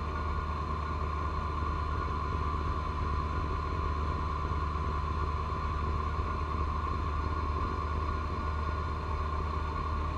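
John Deere 1025R tractor's three-cylinder diesel engine running steadily at working speed, driving a front-mounted 54-inch snow blower that is throwing heavy wet snow. A low, even drone with a steady whine above it.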